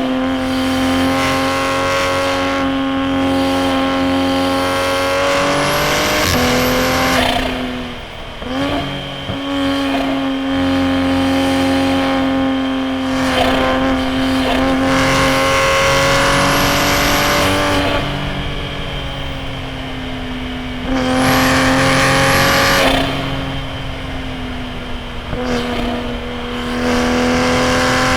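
A90 Supra's turbocharged B58 inline-six running hard through a straight-piped titanium single-exit exhaust, heard from inside the car. The revs hold high, then drop sharply about eight seconds in and near the end, each time followed by a short rev blip.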